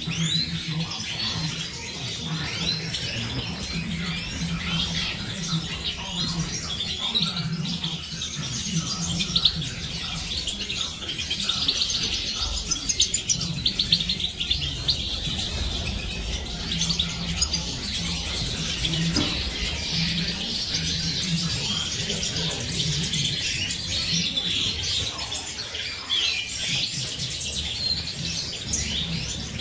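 A flock of caged Siberian goldfinches (Carduelis carduelis major) twittering and chirping, many birds calling and singing over one another.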